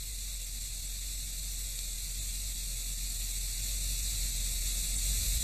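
Steady hiss with a low hum underneath, the background noise of an old recording, with no speech or music. It grows slightly louder toward the end.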